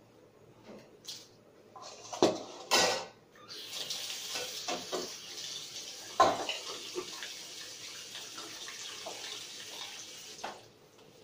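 Metal utensils and a steel bowl clattering, then a tap running in a steady stream for about seven seconds with clinks of dishes under it, shut off near the end.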